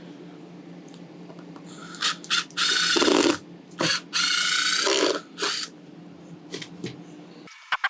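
Power driver running in two bursts of about a second each, backing out cabinet screws, with short clicks and knocks around the bursts.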